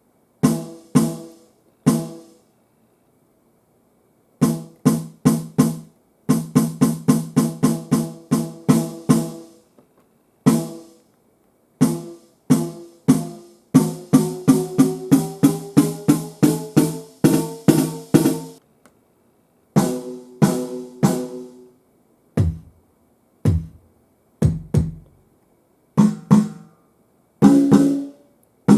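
Roland TD-17 drum sound module voices played from the pads: pitched percussive strikes in fast runs with short silent gaps between them. One run climbs in pitch, and a few deep hits that drop in pitch come near the end.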